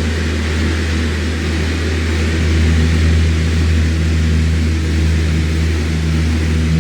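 Electric fan running steadily: a deep motor hum with a few held low tones under an even hiss of moving air.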